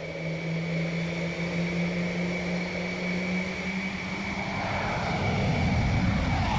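Aircraft engine noise: a steady high whine over a low drone, with the rumble swelling louder in the last couple of seconds.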